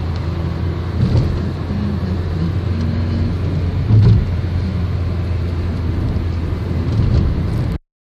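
Car's engine and road noise heard from inside the cabin while driving: a steady low drone with a brief swell about halfway. It cuts off suddenly near the end.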